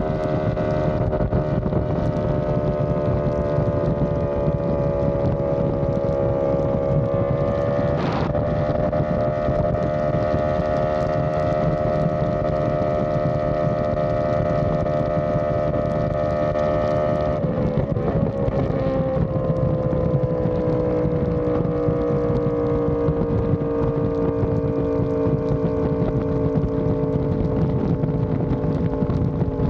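Yamaha R1M's crossplane inline-four engine running through an SC Project exhaust at steady highway cruise, with heavy wind noise on the microphone. The engine note steps up briefly about eight seconds in, goes rough for a moment around eighteen seconds, then slowly falls in pitch.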